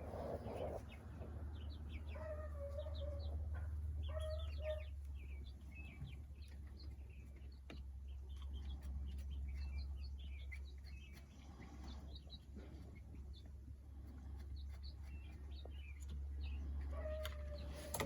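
A flock of young chickens peeping and clucking, with many short high peeps scattered throughout and a few longer drawn-out calls about two and four seconds in and again near the end, over a steady low hum.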